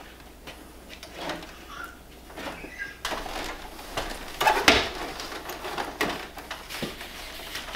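Handling noise from a mini-split's plastic indoor head unit and its insulated line set: rustling, scraping and irregular knocks as the unit is lifted and hung on its metal wall mounting plate, with the loudest knock a bit past halfway.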